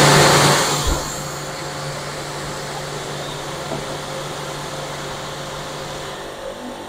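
A 160-bar pressure washer running. Its pump motor hums steadily while the high-pressure water jet hisses onto concrete. The hiss is loudest in the first second, and there is a single low thump just before the hiss settles to a steadier level.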